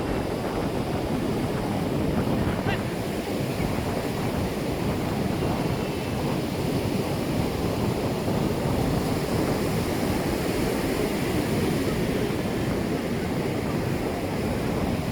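Sea surf washing onto the beach in a steady, even rush.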